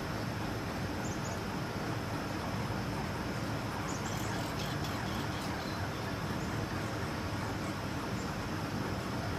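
Steady outdoor background noise, a low rumble and hiss like distant road traffic, with a few faint high ticks or chirps about four to five seconds in.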